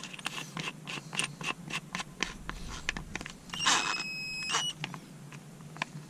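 Small plastic and metal clicks and taps of handling a 12-volt cordless drill and seating a screwdriver bit in its chuck, with a brief whirring noise lasting about a second near the middle.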